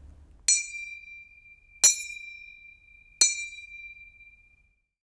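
A small bell-like metal chime struck three times, about a second and a third apart, each strike ringing on one high note that fades away.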